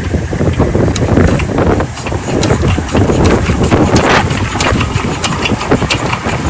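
A 12 HP diesel water-pump engine running, a steady low rumble with sharp clicks several times a second.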